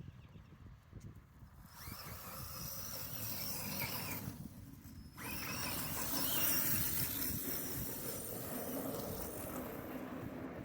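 HBX 903A RC car's electric motor whining at full throttle and its tyres scrabbling over the ground. The first run starts about two seconds in and stops briefly, then a longer, louder run follows.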